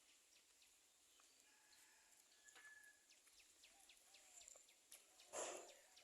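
Near-silent outdoor ambience with many faint, quick high chirps and ticks, and one brief soft rush of noise about five seconds in.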